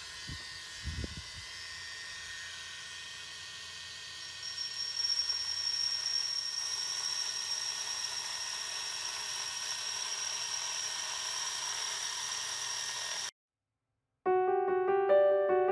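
Hilti core drill with a water-fed diamond bit drilling into a stone boulder. After a few low knocks, a steady high-pitched whine starts about four seconds in and cuts off suddenly near the end. Piano music follows.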